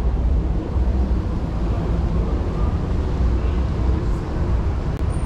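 Outdoor city street ambience: a steady low rumble with faint, indistinct voices of passers-by.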